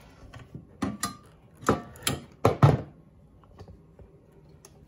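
Hard plastic and metal parts clattering as they are handled: about six sharp knocks in the first three seconds, then a few faint ticks.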